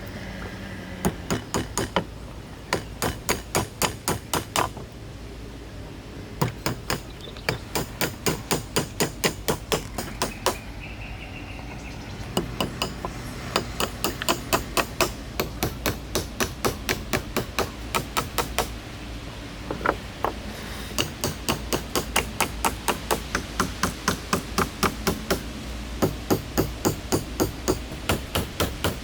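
Hammering: quick runs of sharp blows, about four a second, broken by short pauses between runs.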